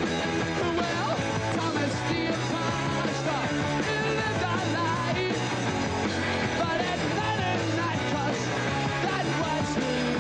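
A rock band playing with a singer's voice over the music, steady and loud throughout.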